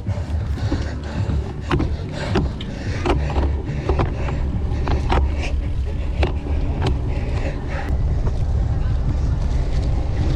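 Wind buffeting the microphone of a camera riding on a racing bicycle, a steady low rush, with frequent sharp clicks and rattles from the bike.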